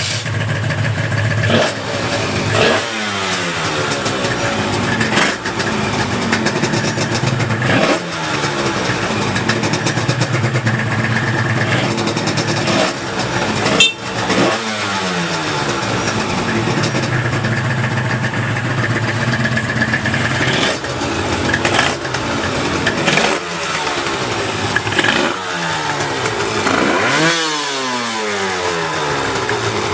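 Honda NSR250R (MC16) two-stroke V-twin catching at once on the kick and running. It is blipped repeatedly, each rev rising sharply and falling back to a steady idle.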